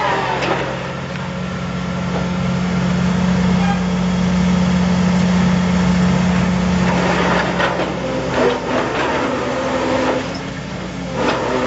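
Engine of a wick-drain (prefabricated vertical drain) installation rig running. Its revs fall as it opens and hold steady, then a few knocks come in the second half and the revs rise again near the end.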